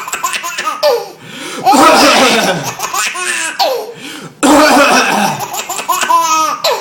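Baby laughing in two long bouts of giggles and belly laughs, set off by a man's coughing. Each bout starts abruptly, about a second and a half in and again about four and a half seconds in, and ends in high, sliding squeals.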